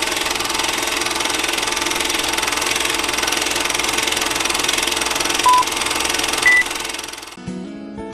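Film projector rattle sound effect behind a vintage film-leader countdown, with two short countdown beeps about a second apart, the second one higher. The rattle cuts off about seven seconds in and acoustic guitar music starts.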